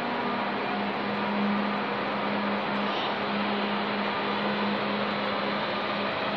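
Steady electrical hum from an electric passenger train in a covered station hall, a low steady drone over a noisy, echoing ambience.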